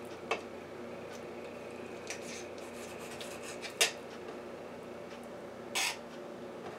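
Kitchen knife slicing raw chicken breast on a bare countertop: four short knocks and scrapes of the blade against the counter, the sharpest about four seconds in, over a faint steady hum.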